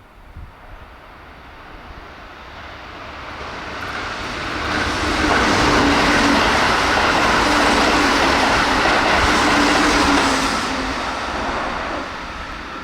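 Keihan 13000 series electric train passing through the station at about 108 km/h without stopping. The sound builds over a few seconds, stays loud for about five seconds with a steady hum under the rush of the wheels on the rails, then fades.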